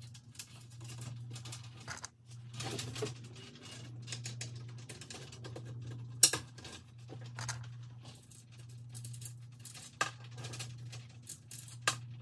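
Bolts and hardware being fitted by hand into a truck grille and its mesh insert: scratching, rattling and scattered sharp clicks and knocks of parts against the grille, the loudest about six seconds in. A steady low hum runs underneath.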